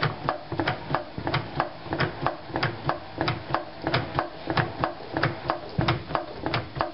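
Craftsman 50240 hydraulic floor jack being pumped by hand under load, its pump handle and check valves clicking about three times a second, with a low thud on each stroke. The jack is freshly topped off with jack oil and keeps lifting past the height where it used to stop on its bypass.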